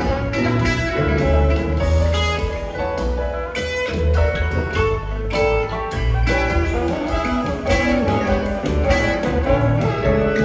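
A live rock band playing an instrumental passage: guitar lines over a steady bass line and drums.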